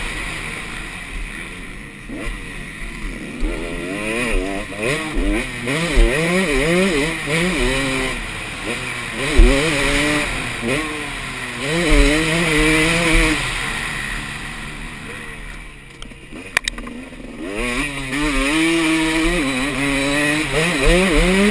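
2013 KTM 250 SX two-stroke motocross engine, fitted with the red valve spring, revving hard and falling away over and over as the rider works the throttle through the gears. It eases off for a few seconds past the middle, then climbs again near the end, with a few low thumps along the way.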